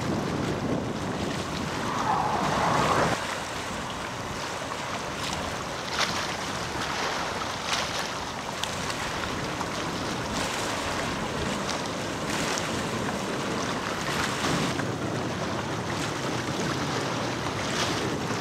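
Wind buffeting the camcorder's microphone: a gusty rushing noise that swells loudest about two to three seconds in.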